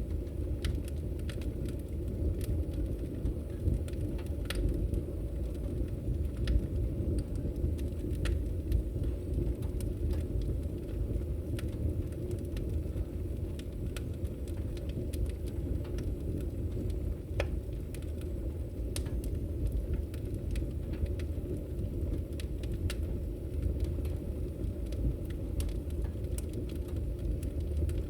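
Wood fire of burning logs in a fireplace: a steady low rumble of flames with frequent scattered crackles and pops.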